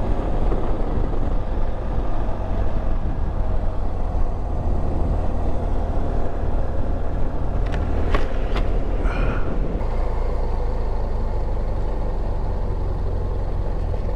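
Adventure motorcycle riding at road speed, its engine running under heavy wind rumble on the microphone, with a few brief clicks about eight seconds in.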